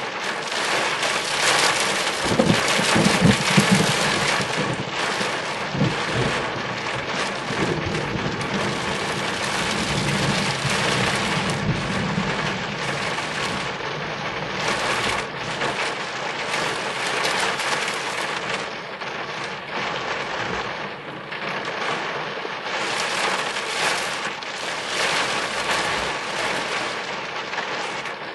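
Heavy rain falling on a car roof and windscreen, heard from inside the car. Rolling thunder from a big nearby lightning strike rumbles in about two seconds in, is loudest a second or two later, then dies away over the next ten seconds under the rain.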